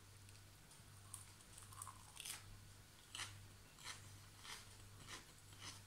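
A person chewing a mouthful of raw salad greens, with faint, irregular crunches.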